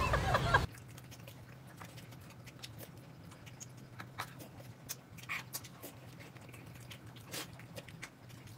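A loud noise that cuts off abruptly under a second in, then faint, irregular chewing and lip-smacking clicks of someone eating, over a low steady hum.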